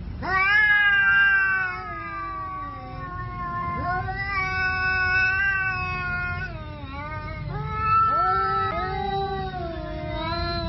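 Domestic cat yowling: long, drawn-out, wavering calls, about three or four in a row, each rising and then sliding down in pitch. The yowls are a standoff threat between two cats before a fight.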